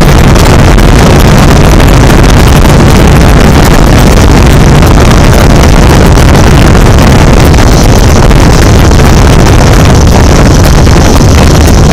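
A multirotor camera drone's motors and propellers whirring steadily and very loudly, heard through the drone's own camera microphone.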